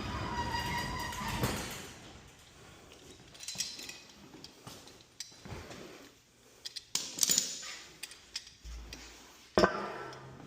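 A steady whine for about the first two seconds, then scattered metallic clinks and knocks of hand tools and garage door hinge hardware being handled, with a sharper knock near the end.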